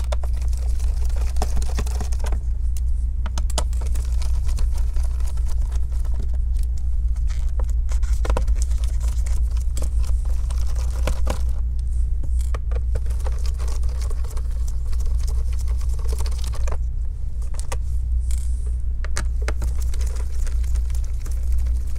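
Small Phillips screwdriver backing the screws out of a laptop's plastic bottom cover: scattered light clicks and scrapes of metal on plastic and small screws. A steady low hum runs under it throughout.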